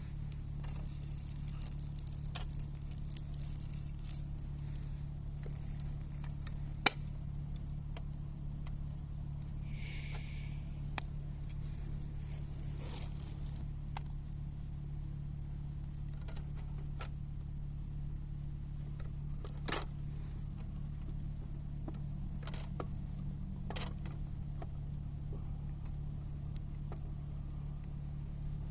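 Steady low hum of an idling engine, with scattered clicks and light knocks and a brief rustle about ten seconds in.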